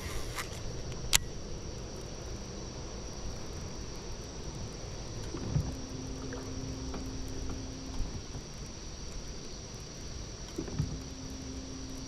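Steady high insect chorus from the lakeside woods over a low rumble of wind and handling noise. A sharp click about a second in from the baitcasting reel as the cast is made, and twice a short thump followed by a low steady hum lasting a couple of seconds.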